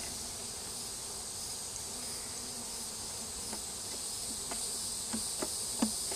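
Steady high insect chirring, with honey bees humming around the opened hive. A few sharp knocks in the second half, loudest near the end, as the wooden hive frames are handled.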